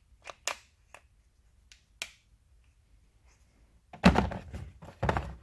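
Handling noise from tools and their packaging: a few light clicks, then about four seconds in a loud thunk and short rattle as things are set down on a hard surface.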